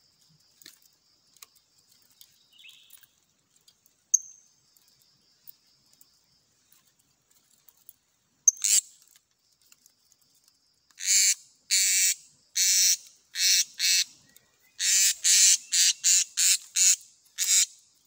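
Blue-crowned hanging parrot (serindit) screeching in short harsh, shrill bursts, about a dozen in quick succession from about eleven seconds in, as it is taken in hand out of the cage; two single sharp chirps come earlier.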